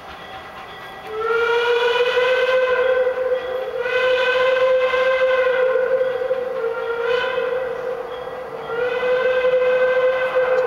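Two-foot gauge steam locomotive's whistle blowing: two long blasts, a short one, then another long one, the pattern of a grade-crossing signal. Fainter train running noise lies underneath.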